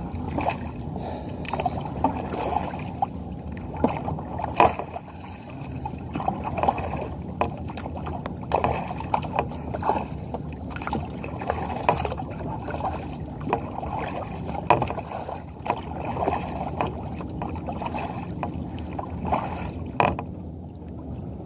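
Water lapping and sloshing against a kayak hull, with scattered small knocks and clicks.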